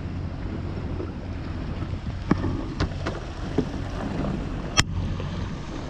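A boat's motor running steadily with a low hum. Several short sharp knocks come from about halfway through, the loudest near the end.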